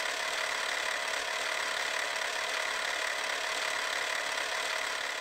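Film projector sound effect: a steady mechanical whir and hiss that starts to fade near the end.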